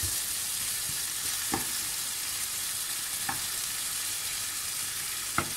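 Onions, green chillies and tomatoes sizzling in hot mustard oil in a metal frying pan, a steady hiss. A spoon knocks against the pan three times, the last knock, near the end, the loudest.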